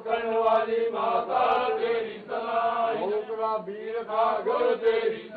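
Male voices chanting Hindu mantras during an aarti, in drawn-out sung phrases of held notes that bend at their ends.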